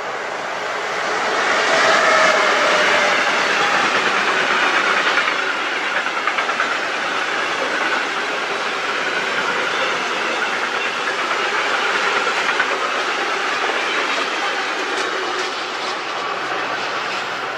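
Freight train of open goods wagons rolling past: a steady rush of wheels on rail, loudest about two seconds in, with scattered clicks as wheels cross rail joints.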